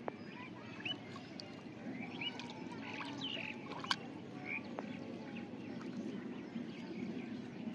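Low water sloshing as a hand gropes inside a bamboo polo fish trap standing in shallow water, with short bird chirps scattered throughout and a sharp tick about four seconds in.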